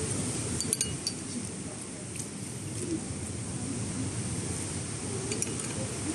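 Cutlery and dishes clinking in a few sharp taps, a cluster about a second in and single ones later, over a low steady background murmur.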